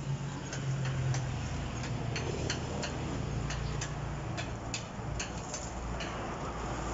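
A dozen or so sharp, irregular clicks and snaps from sawing and handling a freshly cut moringa branch, over a low steady hum.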